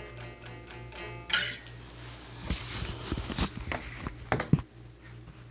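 Guitar being picked, single notes ringing for about the first second, then a sharp knock and a few seconds of rustling, clattering handling noise as the phone recording it is picked up.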